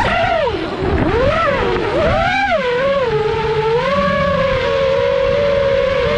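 5-inch FPV quadcopter's brushless motors and propellers whining. The pitch swoops sharply down and back up a couple of times with the throttle over the first three seconds, then holds steadier.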